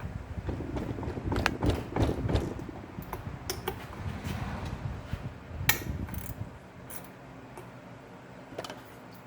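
Hand tools working on metal brake parts: a run of irregular clicks, clanks and ratcheting, thinning out and going quieter for the last couple of seconds.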